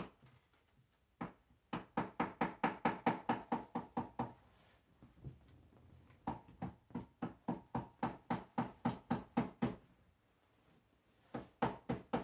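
Small hammer lightly tapping a decorative nail in, in quick runs of taps about four to five a second, each with a short metallic ring. Two long runs with a pause between, and a few more taps near the end.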